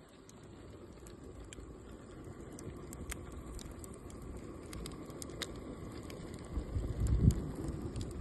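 Wood cooking fire crackling, with scattered sharp pops over a low rumble that swells loud about seven seconds in.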